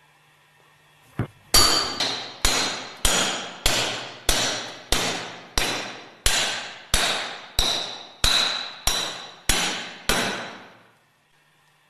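A plastic-faced hammer striking the top of a steel pipe in a steady run of even blows, about one and a half a second, each with a short metallic ring, driving a grooved ball bearing into the clutch drum of a Westfalia separator's centrifugal clutch. One light tap comes first, then about fourteen firm blows that stop near the end.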